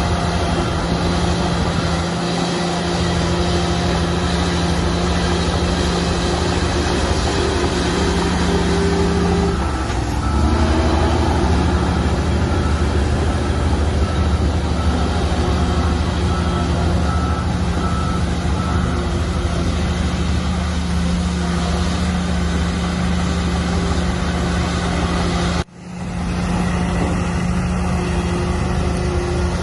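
Shantui bulldozer's diesel engine running steadily under load, its note shifting about ten seconds in. A reversing alarm beeps for several seconds after that. The sound drops out briefly near the end.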